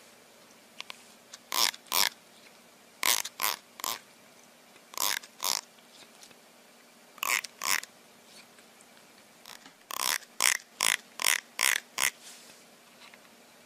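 An animal's short, sharp calls in quick groups: two, then three, two, two, and a fast run of six near the end.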